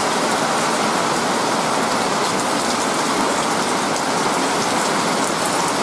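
Steady rain shower falling, an even hiss of rain on surfaces.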